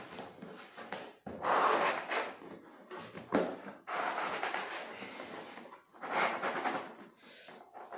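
Cardboard packaging scraping and rustling in several uneven bursts as the flaps and inner cardboard of a laptop box are pulled and worked loose.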